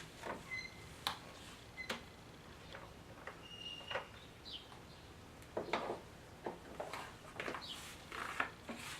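Scattered light clicks and knocks of parts being handled, with a few brief high-pitched chirps or squeaks in between.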